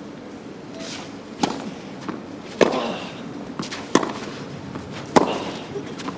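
Tennis balls struck by racquets in a baseline rally: four sharp hits, about 1.3 s apart.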